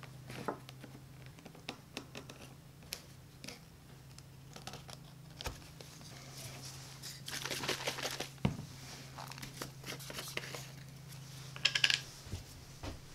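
Leather sheath and small hand tools being handled on a workbench: scattered clicks and taps with bursts of rustling and crinkling as the leather is turned in the hands, a cluster of sharp clicks near the end, over a steady low hum.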